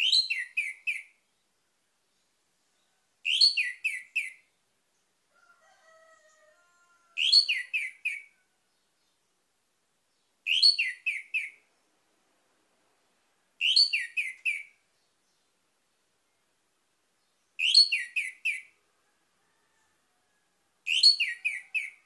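Orange-headed thrush (anis merah) singing the same short phrase seven times, about every three seconds: a high rising note followed by three or four quick falling whistled notes.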